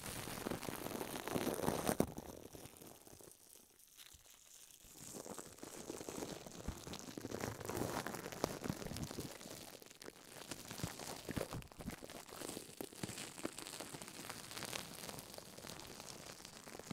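Gold-leaf-covered moonstone slime being squeezed, pulled and stretched by hand right on the microphone: a dense, continuous crinkling and crackling of the gold leaf in the sticky slime. It is loudest about two seconds in, eases off for a couple of seconds, then picks up again.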